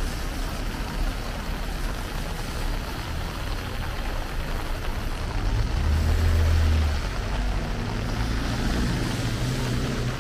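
Rain falling on a wet street, with car traffic running through it. A vehicle passing close by is loudest about six seconds in.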